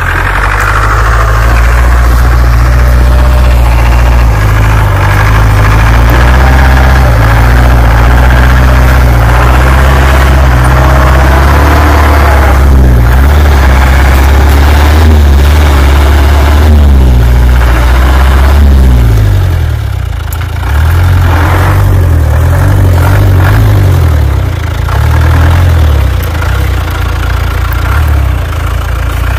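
ARO 4x4 off-roader's engine running under load in deep snow: a steady low drone at first, then revving up and dropping back several times in the second half.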